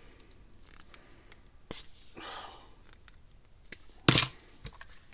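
Small metal clicks and handling noise from needle-nose pliers working a wire spade connector onto a terminal tab, with one sharp clack about four seconds in.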